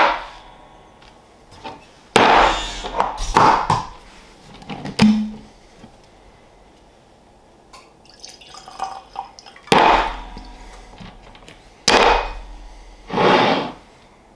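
A whiskey bottle and a tasting glass handled on a bar top: a sharp knock at the start, rustling and knocks, and a short hollow pop about five seconds in. Then bourbon is poured into the glass, followed by more knocks and a longer noisy burst near the end.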